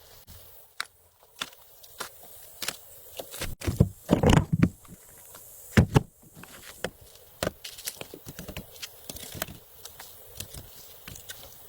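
Irregular clicks and knocks, like objects being handled or steps, with a louder cluster about four seconds in.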